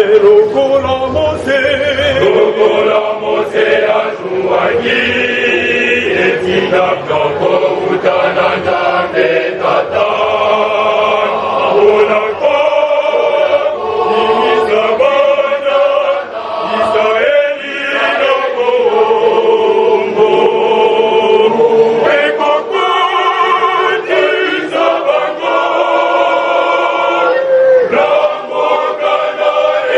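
A choir of men singing together, with long held notes.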